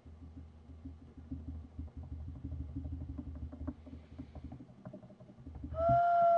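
A drum played by hand in a quick, even rhythm, joined near the end by a flute holding a long note.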